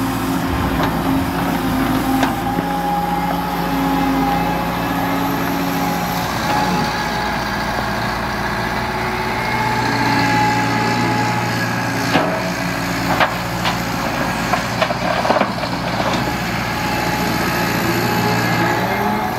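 Liebherr R930 crawler excavator's diesel engine running under load, its pitch shifting as the hydraulics dig and then swing a loaded bucket. Several sharp knocks and clatters of stones and steel come in the second half.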